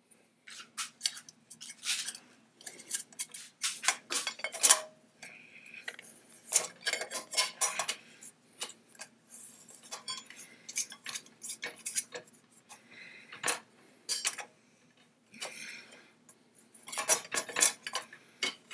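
Metal hand tools clicking, clinking and scraping against an AR-15 free-float rail as a hex key tightens the rail's set screw and a wrench tightens the screwed-on band against the rail: an irregular run of sharp metallic clicks and clatters.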